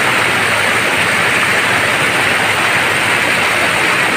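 Water rushing over a small spillway into churning white water: a loud, steady hiss that holds even throughout.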